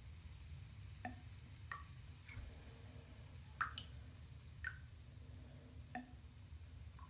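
Water drops plinking into a full bathtub, about seven separate drips at uneven intervals, the loudest about halfway through, over a low steady hum.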